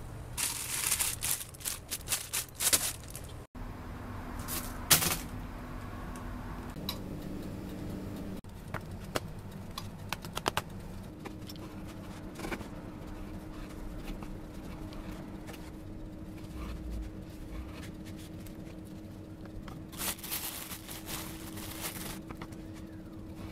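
Bread being handled and cut on a wooden cutting board: rustling handling noises at first, then a low steady hum with scattered small taps and clicks, and about two seconds of rasping near the end.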